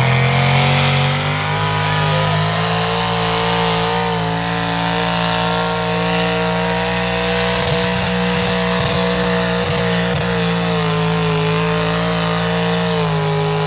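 Pulling tractor's engine running hard at high, steady revs as it drags the weight-transfer sled down the track, its note easing down near the end as the pull finishes.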